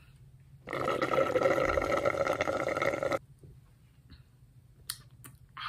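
Liquid running out of a tipped-up drink can into someone's mouth: one steady stretch of about two and a half seconds. A few faint clicks follow near the end.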